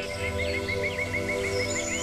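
Meditation-style background music of long held chords, with a bird singing a steady trill of short, alike notes, about seven a second.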